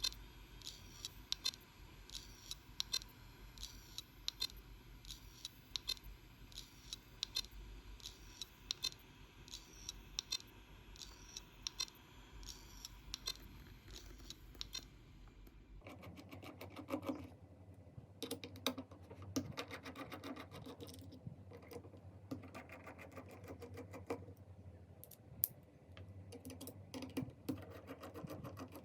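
A failed Seagate hard disk drive knocking over and over, a sharp click about twice a second; the drive has broken. About halfway through the sound changes, becoming fuller with quicker, busier clicking.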